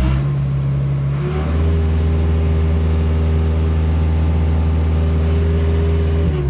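Case 580K backhoe's non-turbo Cummins four-cylinder diesel revved up and held at high revs, its pitch stepping up a little over a second in and dropping back near the end. It is being run up to show its crankcase blow-by on an engine that loses power and smokes black.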